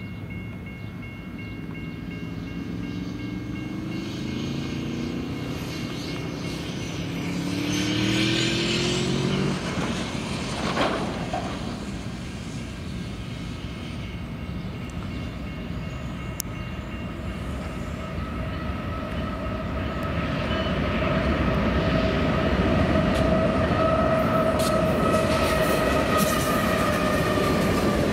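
Diesel locomotives of a long freight train approaching and running past close by. Their engines climb in pitch in the first few seconds, a steady whine sets in about halfway, and the sound grows louder toward the end as the lead units draw alongside.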